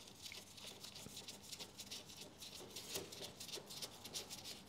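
Faint, quick, irregular clicking of a socket ratchet undoing a bolt.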